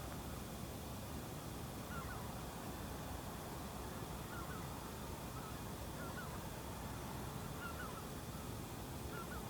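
Distant waterfowl calling: short, faint calls roughly every one to two seconds over a steady low rumble of outdoor background noise.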